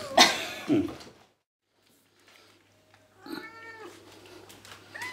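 Cats meowing: a loud, harsh noisy burst just after the start, then after a short pause one brief meow about three seconds in and a higher, longer meow near the end that holds its pitch and then falls.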